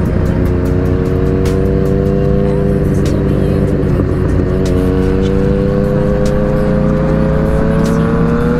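Yamaha MT motorcycle engine pulling along the road under heavy wind noise. The engine note climbs slowly, breaks with an upshift about four seconds in, then climbs again.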